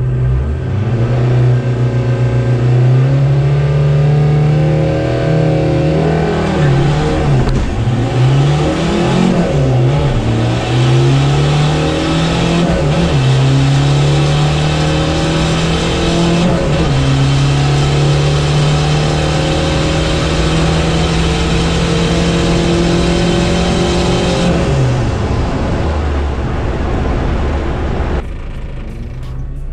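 Volkswagen Rabbit (Mk1 Golf) turbodiesel engine heard from inside the cabin during a full-throttle drag-strip pass. The engine note rises and drops several times through the gears, holds high on a long pull, then falls away about 25 seconds in.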